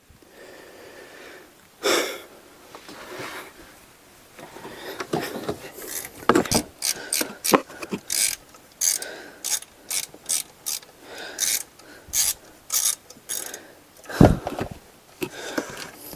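Hand ratchet wrench clicking in repeated short strokes, about two a second, backing out a long power steering pump mounting bolt, with a louder knock about 2 s in and another near the end.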